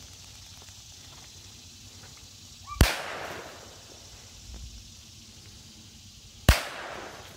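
Two gunshots from a long gun, about 3.7 seconds apart, each followed by a brief echo.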